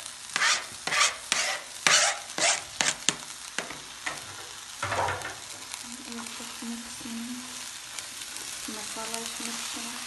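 Knife blade scraping chopped coriander off a plastic cutting board into a frying pan, about seven quick strokes in the first three and a half seconds and one more a little later. Then oil sizzles steadily in the pan, and a plastic spatula starts stirring the potato filling near the end.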